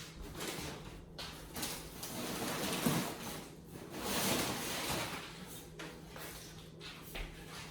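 Cardboard and paper packaging being handled: rustling and scraping that swells and fades in several passes.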